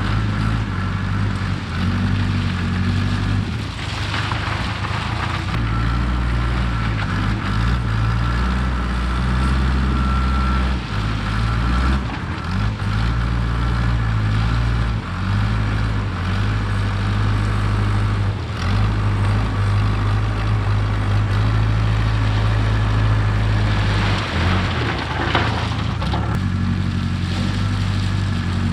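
Case 580K backhoe's diesel engine working steadily, its pitch and load shifting as it moves gravel. Two brief rushes of gravel noise come through, about four seconds in and again near the end.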